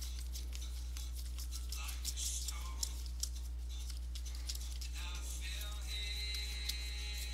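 Baseball cards flicked and slid one past another in the hands, giving a run of short crisp clicks and rustles, over a steady low hum and faint music with held tones coming in about five seconds in.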